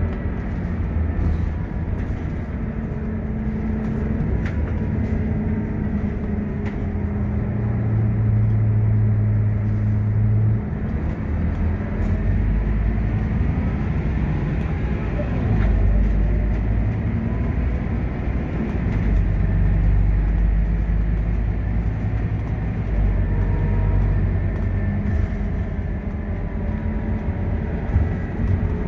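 Scania K230UB city bus heard from inside the passenger cabin while under way: a steady engine drone and road rumble. The engine note shifts as the bus's speed changes and drops suddenly about ten seconds in.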